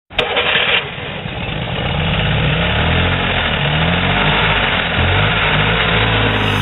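Street traffic: motorbike, scooter and auto-rickshaw engines running and revving, their low tones rising and falling as vehicles pass. Music comes in just at the end.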